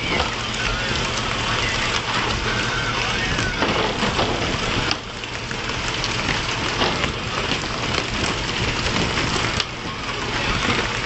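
Fishing boat's engine running steadily under a constant rush of splashing sea water, with men's voices and a few sharp knocks.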